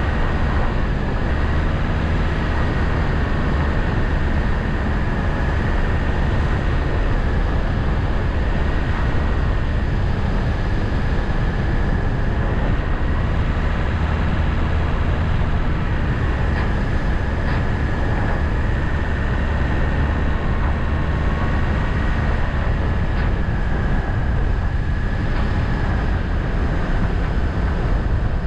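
A vehicle being driven steadily, with constant engine and road noise and a faint wavering whine.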